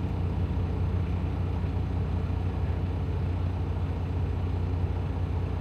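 Semi-truck diesel engine idling steadily, a constant low drone with no revving.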